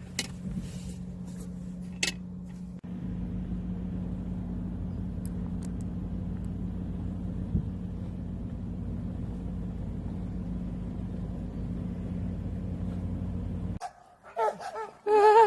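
Steady low vehicle hum, a car's engine and cabin rumble with an even drone, with a couple of small clicks in the first two seconds. It cuts off abruptly near the end.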